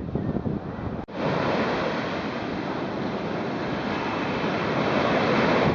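Ocean surf breaking on the beach, a steady rushing wash of waves that slowly swells, with wind buffeting the microphone. There is a sudden break about a second in, after which the surf is louder and more even.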